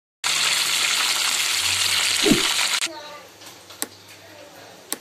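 A loud, even hiss starts suddenly and cuts off about two and a half seconds later, with a short falling tone just before it stops. After it, two sharp clicks sound over a much quieter background.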